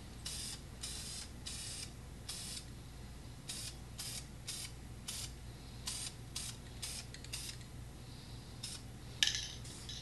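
Aerosol can of spray paint sprayed in a dozen or so short hissing bursts, with a sharper clack about nine seconds in.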